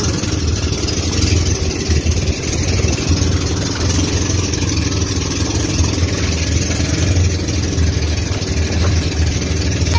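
Outrigger pumpboat's inboard engine running steadily with the boat under way, a constant low drone with no change in speed.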